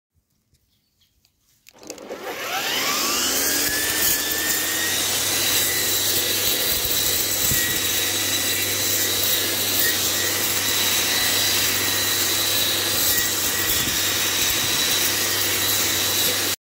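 Grass trimmer starting from silence about two seconds in, its motor spinning up with a quick rising whine, then running steadily at full speed while cutting Sudan grass down to the ground.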